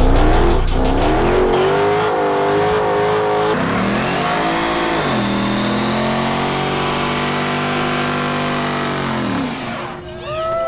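A car doing a burnout: its engine is held at high revs, dipping once and climbing again, over the hiss of spinning tyres. The engine drops away and stops about ten seconds in.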